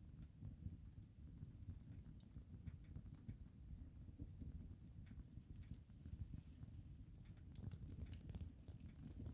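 Wood fire crackling, with faint sharp pops scattered throughout over a low steady rumble.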